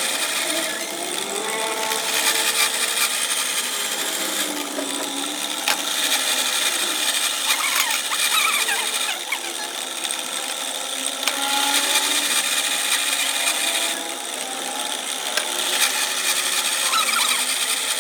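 A power tool running continuously on the truck axle parts, a dense hissing, grinding-type noise with faint wavering tones underneath.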